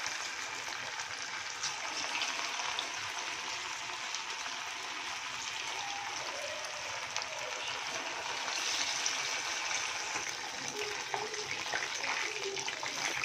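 Marinated chicken 65 pieces deep-frying in hot oil in a kadai, a steady sizzle with fine crackling.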